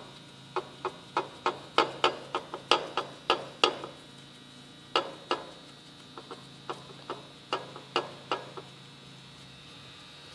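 Ratchet wrench clicking in quick strokes, about three a second, as connecting rod nuts are run down onto the rod bolts of a Subaru 2.2 engine. The clicking comes in two runs with a short pause near the middle, over a steady low hum.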